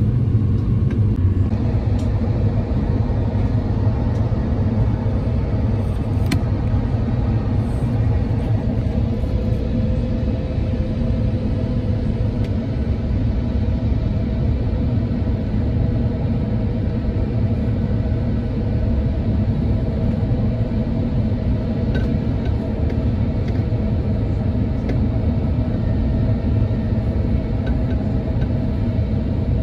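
Steady low rumble of engine and airflow noise inside the cabin of an Airbus A350 descending on approach, with a faint steady hum above it.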